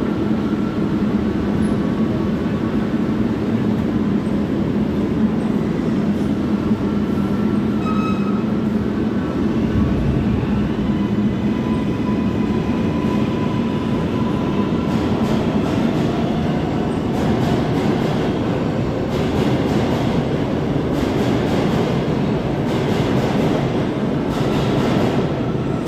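New York subway 7 line train running at the station platform: a steady, loud rumble, with rapid clattering from the wheels in the second half.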